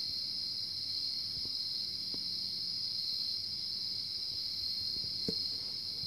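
Steady chorus of night insects such as crickets, a continuous high trill that does not change, with a faint low drone underneath and a soft tick or two near the end.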